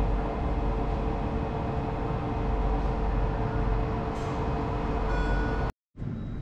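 A vehicle running: a steady low rumble with a faint steady hum, cut off abruptly near the end.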